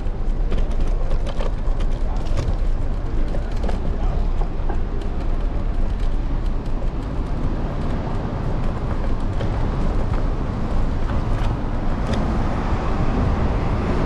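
Steady wind rumble and road noise picked up by a camera clamped to a moving electric scooter's handlebars, with frequent small clicks and rattles from bumps in the pavement, and street traffic.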